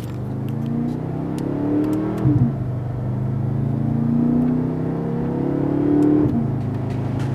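BMW F10 M5's twin-turbo V8 accelerating hard through its exhaust. The engine note climbs and drops sharply twice, about two seconds in and again about six seconds in, as it shifts up gears.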